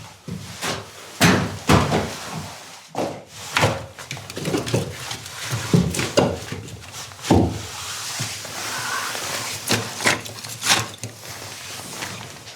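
A series of irregular knocks and thuds from hard objects being handled and set down, some sharp and some duller.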